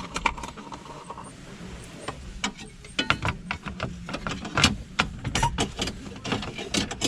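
Irregular clicks, taps and knocks of parts being handled by hand, sparse for the first couple of seconds and then coming thick and fast.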